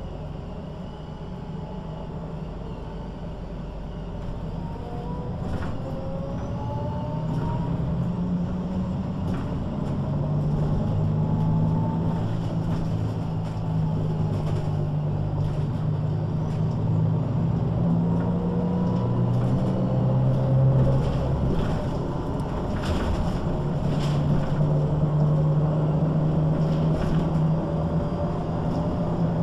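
MAN NG 313 articulated bus accelerating: the diesel engine rises in pitch while a whine from the ZF automatic gearbox climbs twice, with the engine note dropping at the gear changes, over clicks and rattles from the bus body.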